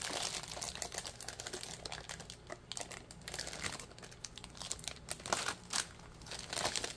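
Clear plastic wrapping crinkling and crackling in irregular bursts as it is pulled open and peeled off a notepad.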